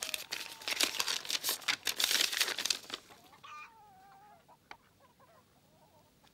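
Paper crackling as a folded note is opened and handled, then a hen clucking briefly, with a wavering call about three seconds in.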